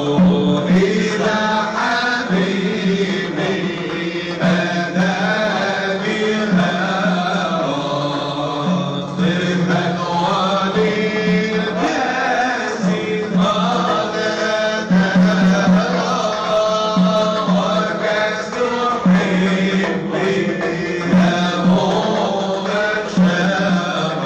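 Men chanting Sufi devotional dhikr. A group holds a low, steady chanted note in repeated phrases of a second or two, while lead voices sing a winding melody above it.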